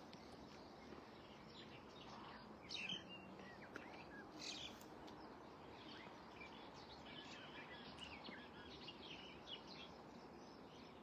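Faint birds chirping and calling over a quiet, steady outdoor hiss, with a couple of slightly louder calls about three and four and a half seconds in.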